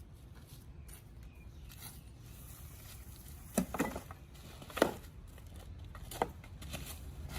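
Handling on a work surface: four short clicks and knocks, two close together about halfway in and one more later, over a steady low hum.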